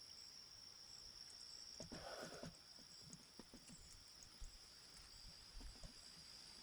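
Near silence outdoors: a steady high-pitched insect trill, crickets, with a faint soft sound about two seconds in and a few faint ticks.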